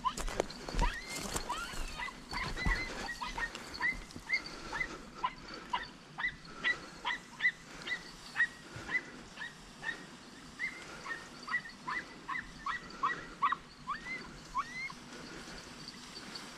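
Podenco hounds yelping in short, high calls, two or three a second, as they give tongue chasing a rabbit through cover. A few sharp knocks come in the first few seconds.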